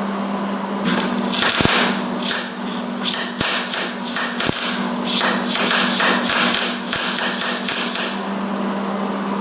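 MIG welding arc burning for about seven seconds with the heat cranked up and the wire speed turned way down. It gives a hissing arc with irregular ticks that isn't crackling enough, the sign of more heat going into the puddle than into the base metal and of poor penetration. A steady hum runs before and after the arc.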